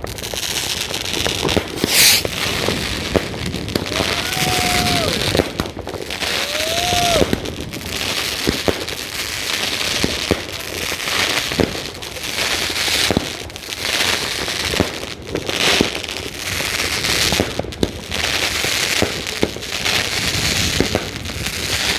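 F2 firework battery (cake), Argento Hysteria, firing: a run of shots and dense crackling bursts that come in repeated waves, with a strong burst about two seconds in.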